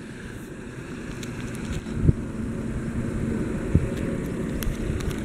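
A motor vehicle engine running with a steady low rumble that grows a little louder, with two dull knocks about two and nearly four seconds in.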